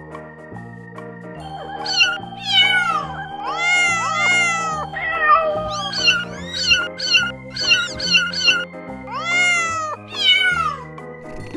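Young kittens mewing over and over in short, high-pitched, falling cries, starting about two seconds in, over background music with steady held notes.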